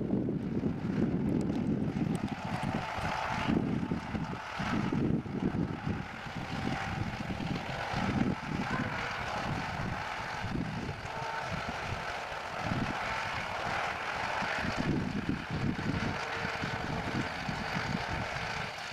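Wind gusting across the microphone in uneven low rumbles, over the steady drone of a distant engine.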